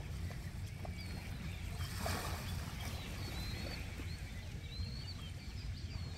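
Small birds chirping in short, high, rising and falling calls over a steady low rumble. A brief soft wash of a small wave comes about two seconds in.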